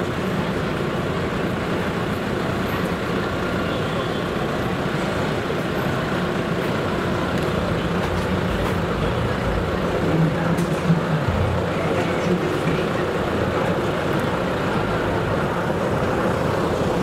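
Large iron pan of Shanghai pan-fried buns (sheng jian bao) sizzling and steaming steadily as water boils off in the hot oil, with a few short louder knocks about ten to twelve seconds in.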